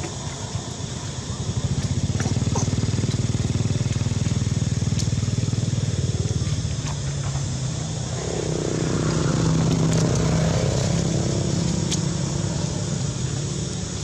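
Small motorcycle engine running close by. Its low hum comes up about a second and a half in, eases briefly after about seven seconds, then swells again and slowly fades.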